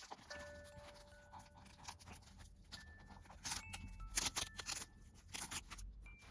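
Rustling and crackling of a massage cushion's fabric cover being handled and pulled open, in irregular bursts that are busiest about halfway through.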